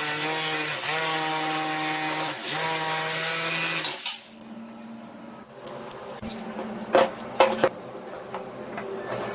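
Small power tool running under load for about four seconds, its pitch dipping briefly twice as it bites, then stopping abruptly. After that, quieter handling noise with two sharp knocks.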